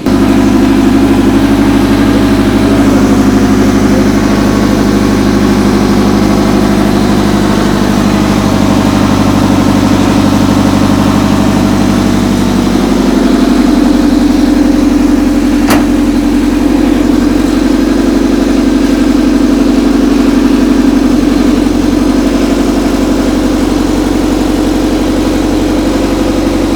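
Toyota MR-S's 1.8-litre four-cylinder engine idling steadily, with a single sharp click about halfway through.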